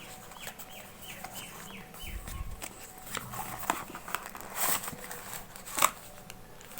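A bird calling in the background with a quick run of short falling chirps, about three a second, over the first few seconds. Over it come clicks and rustles of a product box being opened and handled, the sharpest near the end.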